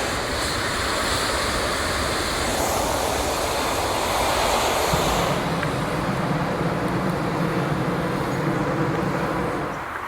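Hot air balloon propane burner firing in one long, steady roar. It deepens about halfway through and falls away at the very end.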